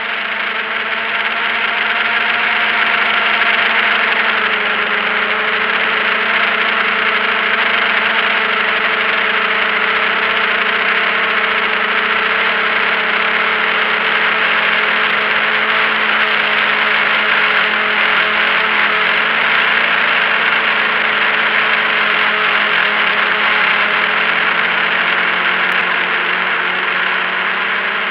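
Drone motors and propellers whirring steadily, heard up close from the drone's own camera, with a steady hum of several pitches over a broad rushing noise. The hum swells during the first few seconds, and its pitch dips slightly about four seconds in.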